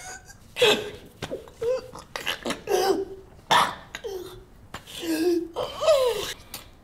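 A person sobbing in short, gasping bursts, about one or two a second, each breaking off with a falling pitch.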